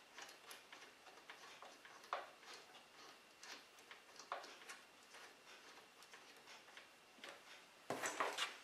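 Faint, irregular small metallic clicks and taps of a miter saw's blade bolt being turned and tightened onto the new blade, with a louder clatter of handling near the end.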